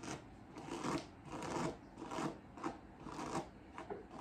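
Paddle brush dragging through dry, tangled natural hair in short repeated strokes, about two a second, each a brief rasp.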